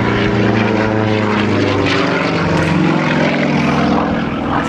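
Single-engine propeller aerobatic plane flying overhead, its engine and propeller making a steady drone.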